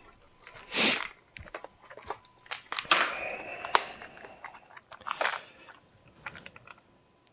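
Small metal tools clicking and rattling as an Allen key set is handled and sorted through, with a couple of louder rustling scrapes.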